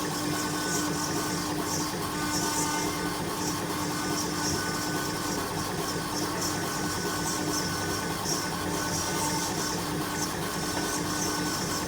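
A CNC router–CO2 laser combo machine running steadily while working stone: a constant hum under a hiss that flutters in the upper range.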